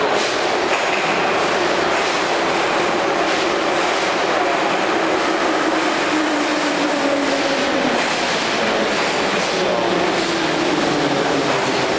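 Saint Petersburg Metro train pulling into the platform: a loud, steady rumble of wheels on rail with a motor whine that falls in pitch as the train slows, echoing in the station hall.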